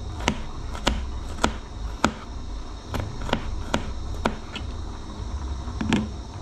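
Kitchen knife cutting spring onions on a plate held in the hand. The blade clicks sharply against the plate about ten times, unevenly, roughly one or two a second.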